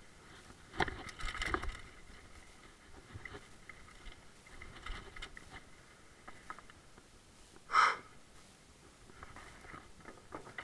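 Mountain bike clattering and rattling over the bumps of a dirt trail and wooden boardwalk, with a cluster of knocks a second or two in. One brief loud, high sound comes about eight seconds in.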